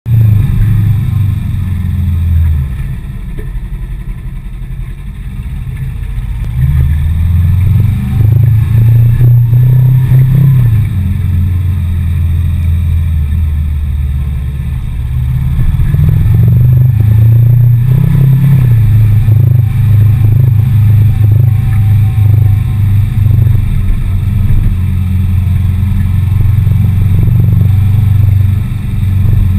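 Suzuki GS 500 E's air-cooled parallel-twin engine running while the motorcycle is ridden through city streets, its pitch rising and falling with the throttle. It is quieter between about two and six seconds in and louder from about seven seconds on.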